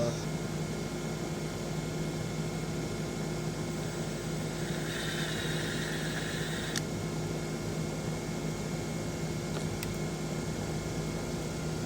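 Cordless drill with a 1/8-inch bit running for about two seconds midway, drilling a pilot hole in the plastic kayak hull, and stopping with a click. A steady fan-like hum runs underneath.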